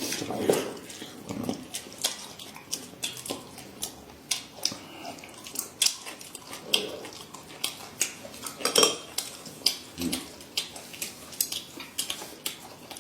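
Tableware at a meal: utensils clicking and tapping against dishes and bowls, many light irregular clicks.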